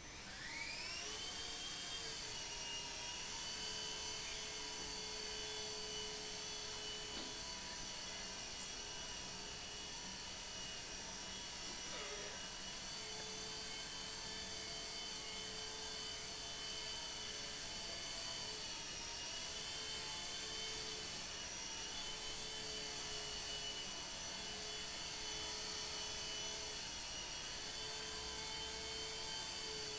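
Electric motor and rotor of a Nine Eagles Solo Pro II micro RC helicopter spooling up at the start, then a steady high-pitched whine as it flies. The pitch dips and recovers a few times.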